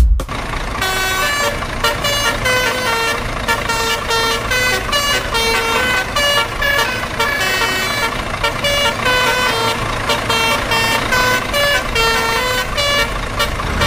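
A musical truck horn tooting a quick tune of short notes that change pitch every fraction of a second, over a steady low engine rumble.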